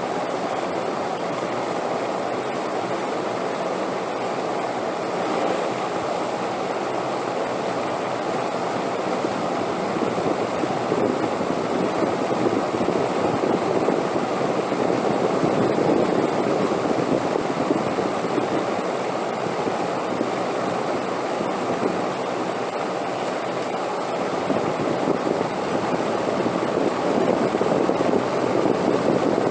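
Wind blowing steadily, a dense rushing noise that swells a little about halfway through and again near the end.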